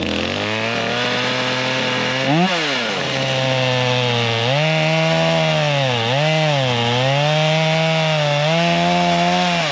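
Stihl two-stroke gasoline chainsaw running, revved up and down once about two and a half seconds in, then held at full throttle and cutting through a thick tree trunk from about four and a half seconds in, its pitch dipping briefly twice as the chain loads up in the wood.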